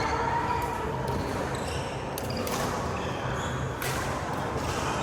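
Badminton play: several sharp racket hits on a shuttlecock, a second or so apart, with sneakers squeaking on the court floor.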